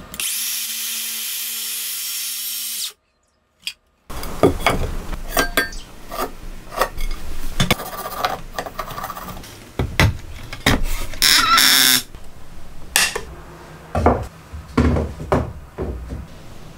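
Workshop handling sounds: a pencil scratching a line across a wooden beam, then wood being set down and clamped on a bench, with scattered knocks and scrapes. It opens with a steady hiss of about three seconds, which stops abruptly into a moment of silence.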